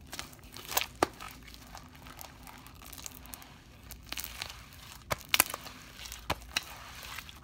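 Sticky homemade clear slime, fluffy with air bubbles, squished and stretched by hand, making irregular sharp squelching clicks and pops, with a cluster about five seconds in.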